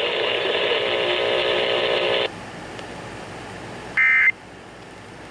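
A steady buzzing tone cuts off about two seconds in, leaving faint hiss. Then come the Emergency Alert System's end-of-message data bursts: one short, loud digital screech near the end, and the next one starting at the very end, each about a third of a second long. These mark the close of the alert.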